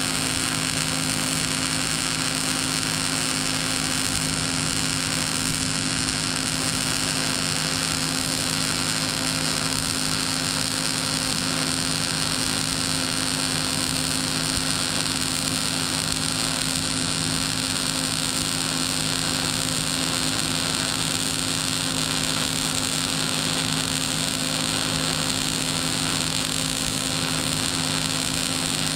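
Wire-feed welder arc running continuously along a steel pipe: a steady, unbroken hiss with a low electrical hum underneath.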